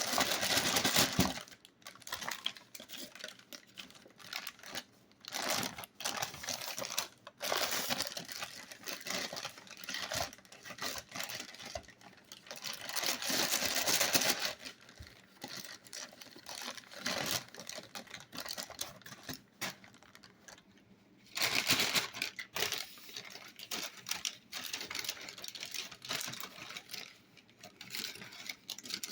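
Slime being squished and worked by hand: a run of irregular wet clicks and crackles, with louder spells every several seconds.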